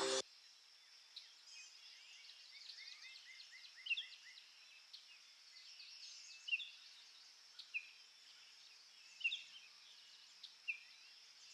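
Small birds chirping and singing faintly, with short high calls scattered throughout and a quick run of about six repeated notes around three seconds in, over a faint steady high hiss.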